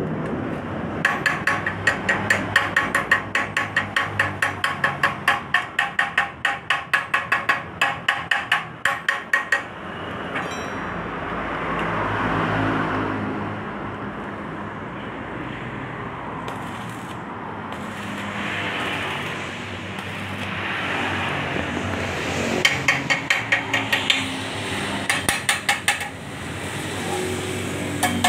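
Rapid metal-on-metal tapping on a leaking motorcycle muffler, about three ringing strikes a second, stopping after roughly nine seconds. A stretch of rougher steady noise follows, and the tapping starts again shortly before the end.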